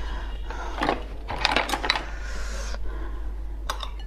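Tableware being handled on a table: a series of light clinks and taps, with a brief rustling scrape a little past the middle.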